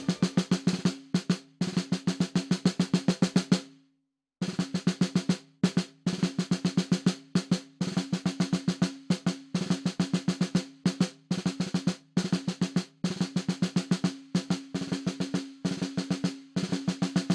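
Military-style snare drum beating a steady march cadence, several strokes a second, over a low held note, with a few short breaks.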